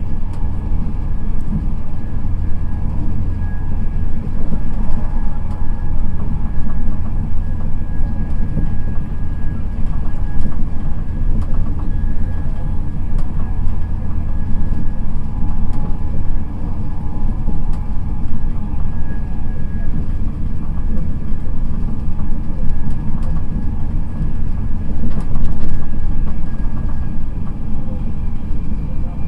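Steady low rumble of an express passenger train running at speed, heard from inside the coach, with a faint steady high whine over it.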